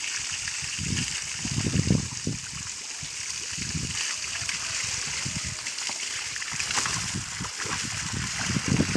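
Water from a hose spraying and splashing onto wild boars and muddy ground, a steady hiss, with a few louder low rumbles, the loudest about two seconds in and near the end.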